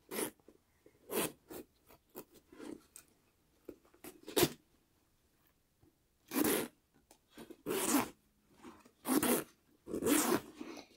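Metal zipper on a leather handbag being pulled open and shut several times, a series of short zips, the longer ones in the second half. The worn slider, squeezed tighter with pincers, is now meshing the teeth and closing the bag, though it is stiff to pull.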